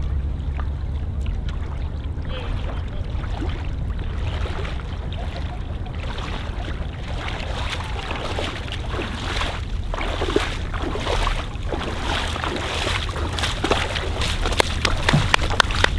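Shallow sea water sloshing and splashing around a person's legs as he wades through it, the splashes coming thicker and louder in the second half, over a steady low rumble.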